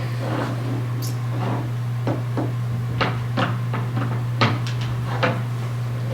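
Small plastic Shopkins mini figures being picked up and set down on a hard surface: a string of light clicks and knocks, closer together in the middle and later part, over a steady low hum.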